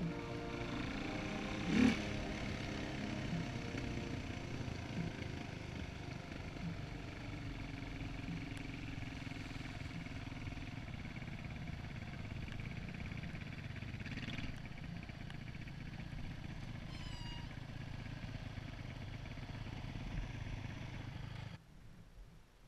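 Quad bike engine running steadily at low speed, with a motocross bike's engine ahead of it and a knock about two seconds in. The engine is switched off near the end.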